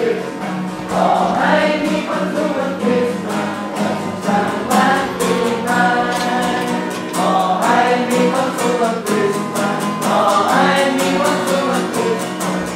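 A group of people singing a Christmas song together, accompanied by a strummed acoustic guitar.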